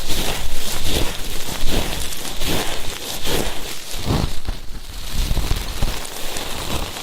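Close-miked ear-cleaning ASMR: an ear pick scratching and rustling against the microphone's ear, a run of irregular crackly strokes that is a little quieter in the middle.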